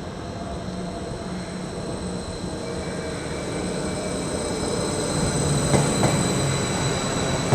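A train drawing nearer and growing steadily louder, with a thin high squeal from the wheels on the rails. A couple of sharp clicks from the wheels over the rail joints come about six seconds in.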